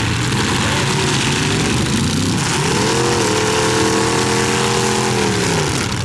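Demolition derby cars' engines running loud together. About two and a half seconds in, one engine revs up hard, holds high for about three seconds, then drops back near the end.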